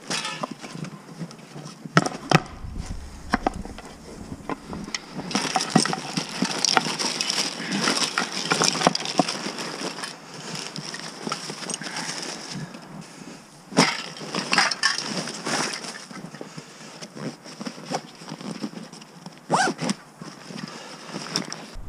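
Climbing gear, rope and spray-paint cans being handled and packed into a backpack on snow: irregular rustling of bag fabric with many sharp knocks and clinks, the loudest about 2, 14 and 19 seconds in.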